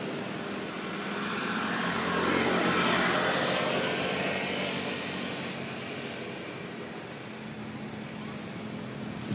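A vehicle passing by: a broad rushing noise that swells to its loudest about three seconds in, then fades away.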